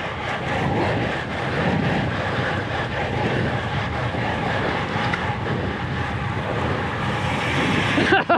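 Steady rush of wind over an action camera's microphone, with tyre and road noise from road bikes ridden fast. It cuts off near the end as music comes in.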